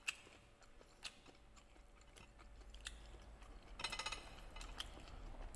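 A person chewing a mouthful of kimbap, a seaweed-wrapped rice roll. It is faint, with scattered small mouth clicks and a quick run of clicks about four seconds in.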